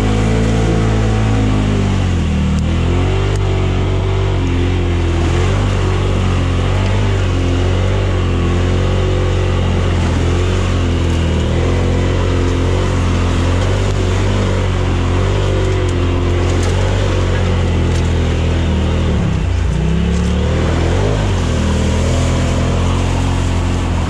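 Polaris buggy engine running under load off-road, its revs rising and falling. Near the end the revs drop sharply and then climb again.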